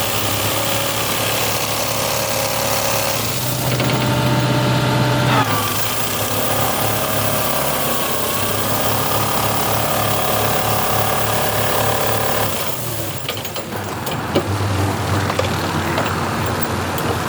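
Engine of a Berardinucci Tornado farm machine running while it works. The engine note rises for a couple of seconds about four seconds in and eases about thirteen seconds in, after which scattered clicks and knocks are heard over it.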